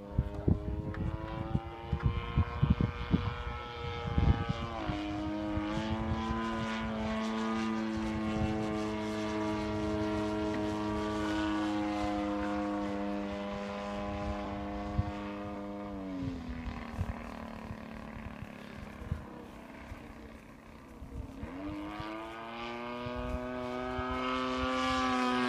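Single-cylinder two-stroke DLE-55 petrol engine and propeller of an RC aerobatic plane in flight, running at a steady pitch. About 16 s in the note drops to a low idle, and from about 21 s it climbs back up as the throttle opens. Wind buffets the microphone in the first few seconds.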